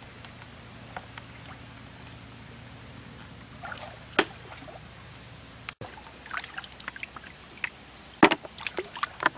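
Water splashing and dripping as a person wades and gropes about in shallow muddy lake water, with scattered short splashes and sharp knocks. They grow busier after a brief break about six seconds in, with the loudest splash a little past eight seconds.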